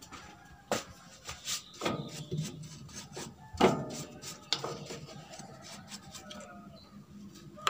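Hands working at a rice husker's metal housing: scraping and rubbing with irregular clicks and knocks, the sharpest knock about three and a half seconds in.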